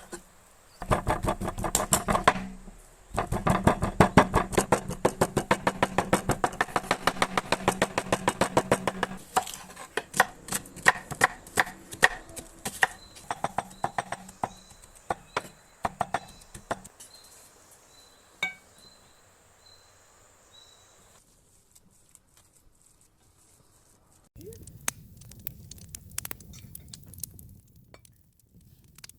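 Rapid, even strokes of a kitchen utensil preparing food, many strokes a second for several seconds, then slower scattered strokes. Near the end, a low rustling with a few clicks.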